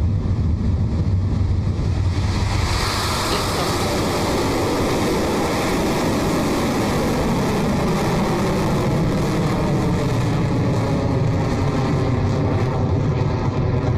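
Rocket Lab Electron's nine Rutherford first-stage engines firing at liftoff and through the climb off the pad: a loud, continuous rushing rumble that turns harsher and brighter about three seconds in.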